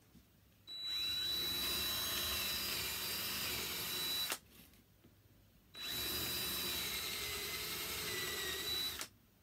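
DeWalt cordless drill boring holes through a wooden block, in two runs of about three seconds each with a steady high whine. Each run stops abruptly.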